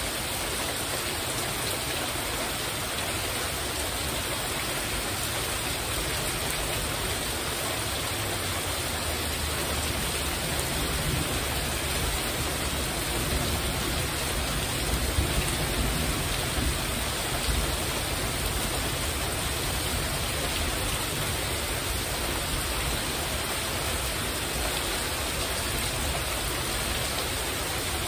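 Heavy rain falling steadily on a metal porch roof, an even hiss, with a few sharper taps about halfway through.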